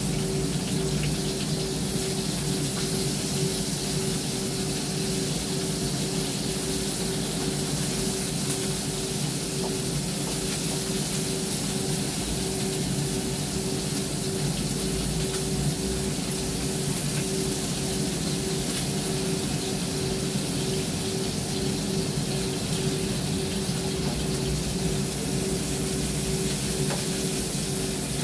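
Food frying in a pan on the stove, a steady sizzle with the occasional scrape of a spatula, over the steady hum of a range-hood extractor fan.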